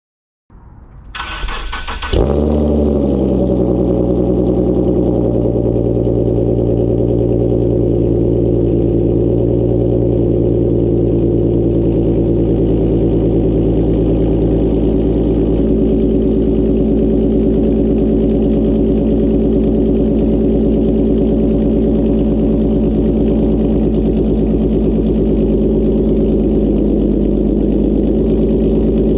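Infiniti Q50 with a loud exhaust being started: the starter cranks briefly, the engine catches with a flare, then settles over a few seconds into a steady idle.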